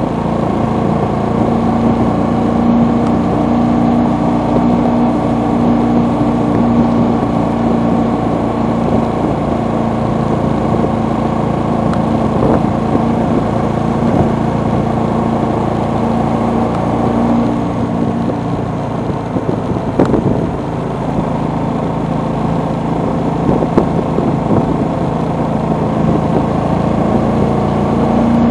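Honda Grom 125's single-cylinder four-stroke engine running at steady cruise. Its pitch drops about eighteen seconds in and climbs back near the end as the speed changes, with one sharp click about twenty seconds in.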